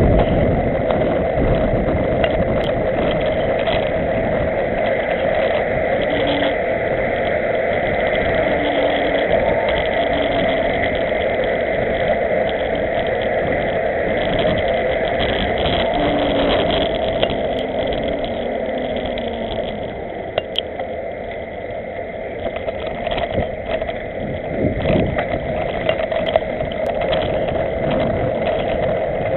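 Steady rush of wind on a camera microphone and tyres running on asphalt while riding a bicycle in a pack. The rush eases for a few seconds about two-thirds of the way through.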